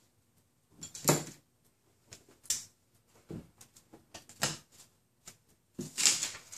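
Packing tape and plastic packing-slip pouches on a cardboard box being cut and pulled with a small blade: a series of short rustling, crinkling bursts, about one a second.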